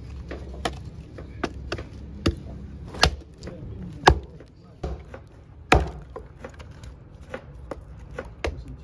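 Hatchet chopping a thin wooden branch against a wooden stump: a series of sharp chops about one a second, the strongest about three, four and six seconds in.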